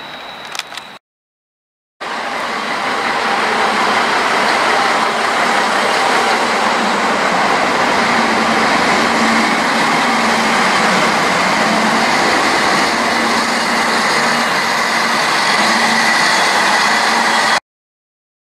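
Stadler Regio-Shuttle diesel railcars running at the platform: a steady engine and cooling-fan drone with a faint high whine, cutting off suddenly near the end.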